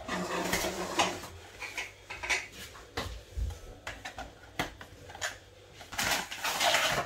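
A cardboard cake-mix box being opened and its contents handled: scattered rustles, light knocks and clatter, with a longer rustle near the end.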